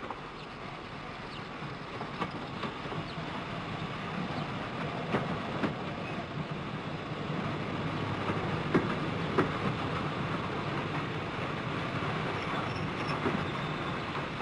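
Steam-hauled train running into the station alongside a standing train, a steady rumble that grows louder over the first several seconds, with scattered clanks and knocks.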